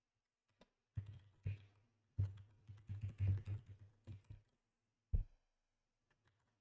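Typing on a computer keyboard: a short run of keystrokes about a second in, a longer quick run from about two to four and a half seconds, then one separate keystroke a little after five seconds.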